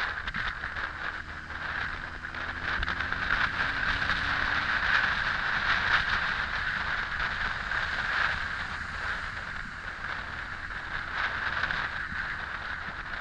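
Wind rushing over the microphone of a Honda X4 motorcycle riding at road speed, with the bike's inline-four engine running faintly underneath. The rush swells for a few seconds in the middle.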